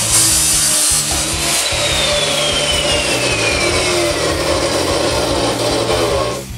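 Abrasive metal chop saw spinning after cutting a steel exhaust pipe. A thin whine falls steadily in pitch from about a second and a half in as the disc winds down. The sound drops away sharply near the end.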